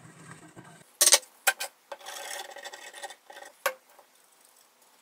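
A few sharp clicks and taps, then about a second of scratchy rubbing, from handling a glue bottle and working glue into a hole in a wooden chair-back slat.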